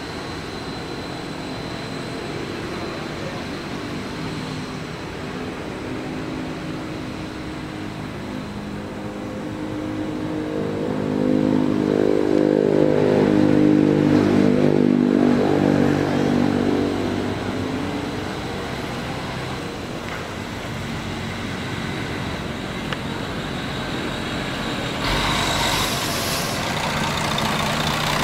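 Diesel engine of a large three-axle intercity coach drawing near and driving past, its engine note building to a peak about halfway through and then fading. A short, loud hiss comes a few seconds before the end.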